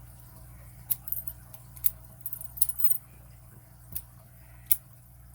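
A set of small padlock keys clinking and jangling as they are handled: about seven sharp, light metallic clicks at irregular intervals over a faint steady hum.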